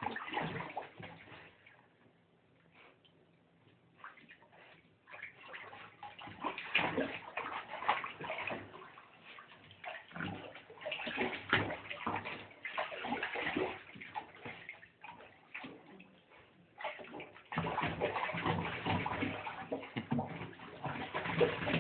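A small dog paddling in a bathtub of shallow water: irregular splashing and sloshing with short pauses, busiest and most continuous near the end.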